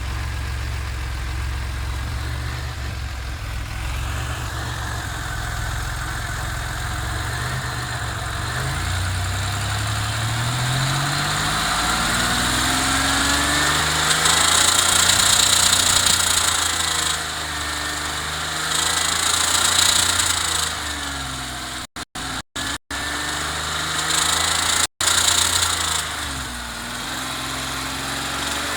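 Supercharged GM 3800 Series III V6 engine idling, then revved up and down several times. At the top of the revs a loud high-pitched noise joins the engine: a valve-train noise from about 3200 rpm that the owner suspects is a lifter collapsing.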